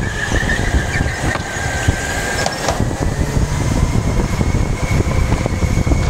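Go-kart running at speed, heard from the driver's onboard camera: a heavy, continuous rumble under a thin, steady high whine that climbs slightly in pitch, with scattered small clicks and rattles.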